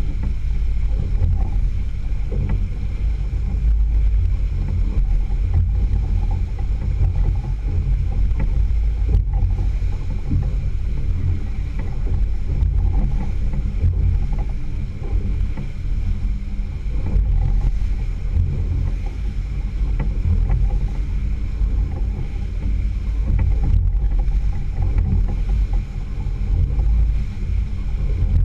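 Outboard motor running steadily as the boat trolls, with water rushing in the wake and a heavy, uneven low rumble of wind on the microphone.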